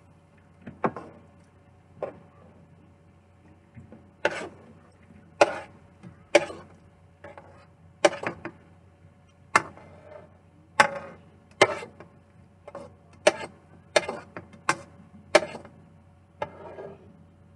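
Sharp, irregular clicks and taps, roughly one a second, of a utensil and a nonstick skillet being knocked together while cooked ground beef is drained of its fat.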